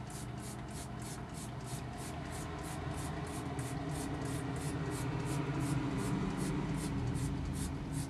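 Hand-held trigger spray bottle pumped rapidly, about four sprays a second, jetting water on a straight-stream setting into the front coil of a window air conditioner to flush dirt through the fins. A steady low hum runs underneath.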